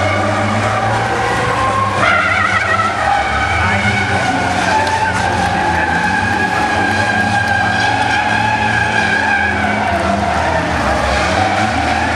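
Racing trucks' diesel engines running at speed, with a sustained high whine over the engine drone that jumps in pitch about two seconds in.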